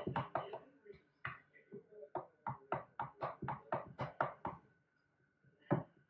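A metal spoon clinking against the inside of a glass pitcher of punch as it is stirred, about four quick taps a second. The taps stop about four and a half seconds in, with one last louder knock near the end.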